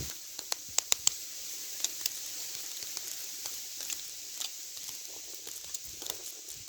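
A tit tapping its beak against the camera: sharp, irregular taps, a quick run of three about a second in and single taps scattered after, over steady background noise.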